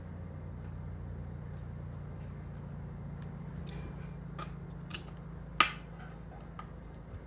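Scattered light metal clicks and taps of a hand tool on the bolts being threaded in to hold the RC car's gas motor in place, with one sharper click about five and a half seconds in, over a steady low hum.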